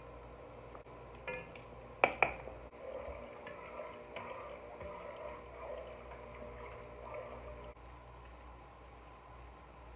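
A metal ladle knocks sharply against an enameled cast-iron Dutch oven twice, about a second and two seconds in, with a short ring. It then stirs and scoops the simmering chicken broth, making soft sloshing and dripping sounds.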